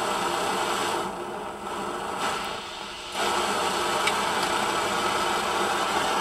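Optimus 8R petrol stove burner running with a steady hiss, its jet freshly cleared. The sound drops back about a second in and comes back up sharply about three seconds in.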